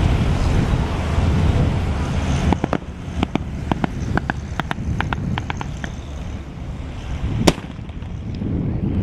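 Blank gunfire from the mounted machine guns of WWII military vehicles: a ragged string of sharp shots for about three seconds, then one much louder crack. Under it runs a low rumble of vehicle engines, heavier in the first couple of seconds.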